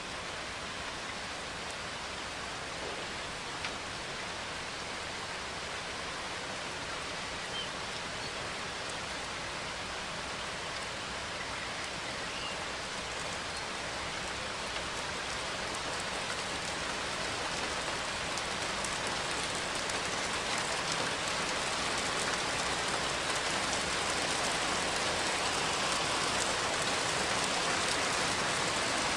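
Steady rain falling, a dense even patter that slowly grows louder over the stretch.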